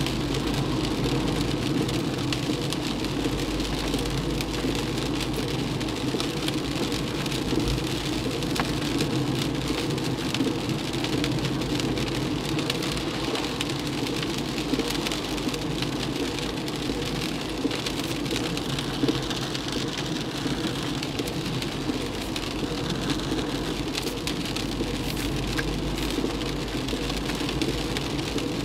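Heavy rain falling on a moving car, heard from inside the cabin, with steady road and engine noise underneath and fine scattered drop ticks.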